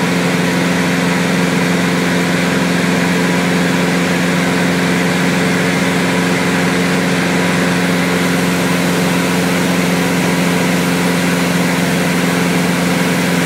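Diamond DA20 light aircraft's four-cylinder piston engine and propeller running at a steady cruise setting: an unchanging drone with a low hum and a rushing hiss of airflow.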